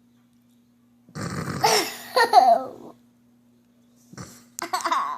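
A young child lets out a loud, drawn-out burp about a second in, lasting nearly two seconds, then laughs near the end.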